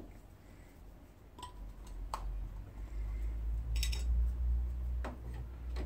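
A few sharp clicks and knocks from small objects being handled, one a short crackle, over a low rumble that swells in the middle and eases near the end.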